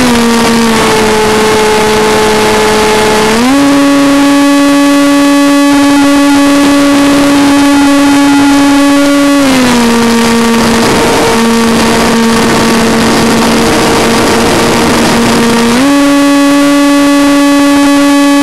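Brushless electric motor and pusher propeller of a Funjet Ultra RC plane, heard from the onboard camera: a loud buzzing whine with strong overtones that drops in pitch just after the start, climbs back after about three seconds, drops again about halfway and rises once more near the end as the throttle is eased and opened. Air rushing past the airframe hisses underneath.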